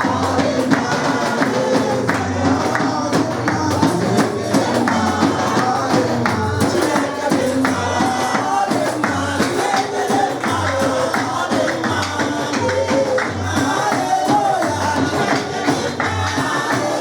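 Church praise music with a tambourine keeping a steady beat under a sung melody.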